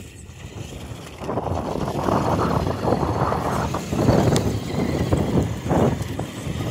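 Gusty wind buffeting the microphone, swelling from about a second in, over the Traxxas TRX-4 RC crawler driving across dirt and gravel. A single short click comes midway.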